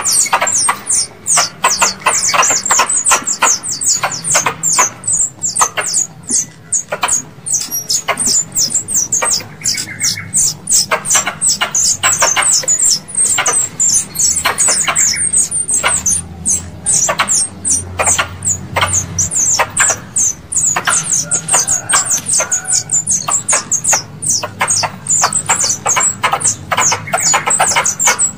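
Squirrel lure call: a rapid, unbroken run of sharp, high chirps, several a second, played to attract squirrels.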